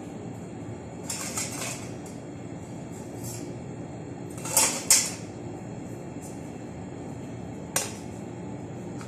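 Kitchen cookware and utensils being handled: a scrape about a second in, two loud metal clanks about halfway through and a sharp clink near the end, over a steady background hum.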